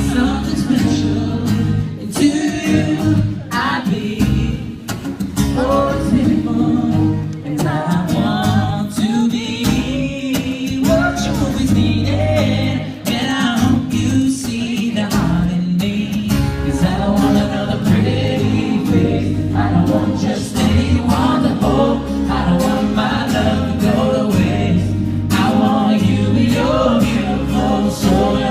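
Live pop song performance: singing over a band or backing track with a heavy, pulsing bass line.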